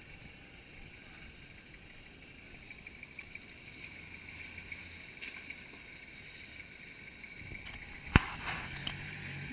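Four-wheel-drive ute's engine running faintly at low revs as it crawls over creek-bed rocks, picking up a little near the end, over a steady high hum. About eight seconds in there is one sharp knock, the loudest sound.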